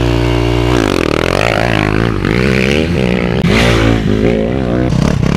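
Motocross bike engine running, steady at first, then revving up and down again and again under hard throttle.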